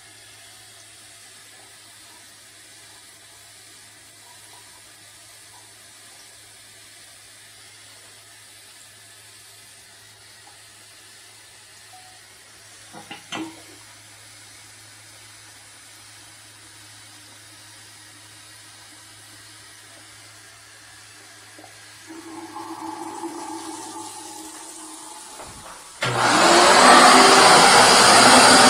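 Tap water running quietly into a washbasin, with a single knock about halfway through. Near the end a wet vacuum starts up loud, its hose sucking at the floor drain.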